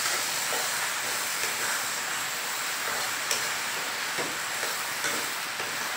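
Dry fish and potato bhuna sizzling in oil in a kadai, with a steady hiss and a metal spatula scraping the pan a few times as it is stirred. The water has cooked off, so the mixture is frying dry.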